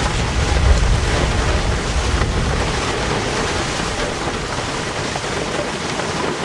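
Heavy rain falling on a car's roof and windscreen, heard from inside the cabin, with a low rumble of thunder that peaks about a second in and then eases off.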